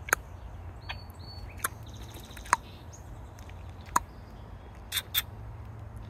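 Male red-winged blackbird feeding on a wooden railing: a few sharp taps of its beak on the wood, a second or more apart. A short high whistle comes about a second in, and two quick high clicks come about five seconds in.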